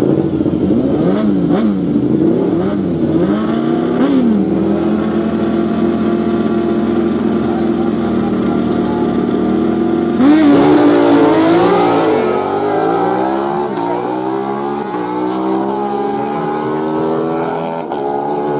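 Sport bike engine at a drag strip start line, blipped in short rising-and-falling revs, then held at high revs for several seconds. About ten seconds in it launches, louder, the pitch climbing and dropping back through several upshifts as the bike pulls away.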